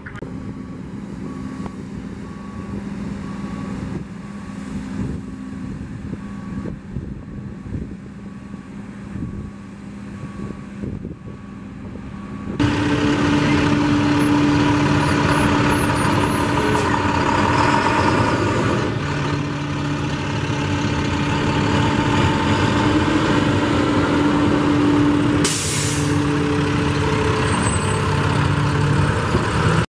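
Heavy truck engines running at a crash scene, with a backup alarm beeping steadily for the first dozen seconds. Partway through, a louder, closer engine drone takes over and holds steady, and a short burst of air hiss comes near the end.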